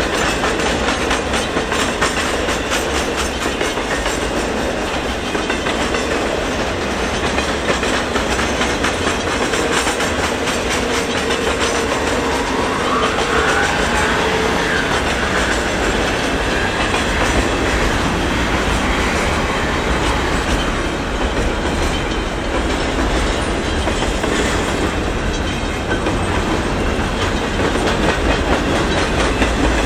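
Double-stack intermodal container cars of a freight train rolling past at steady speed, their wheels clacking over rail joints in a continuous rumble. A faint wavering squeal comes in about halfway through.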